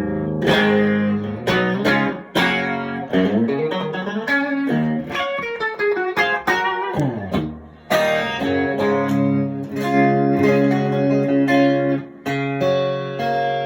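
Electric guitar played through a 1978 Marshall 4140 Club and Country tube combo amp fitted with new Celestion speakers, on its hotter, higher-gain channel. Picked notes and chords, a long downward slide in pitch around the middle, a short break, then held notes ringing.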